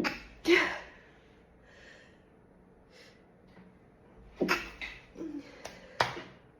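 A woman's stifled sneezes and sharp breaths as she tries to hold the sneezes back: two sudden bursts half a second apart at the start, then a cluster of short bursts about four and a half seconds in and another sharp one near the end.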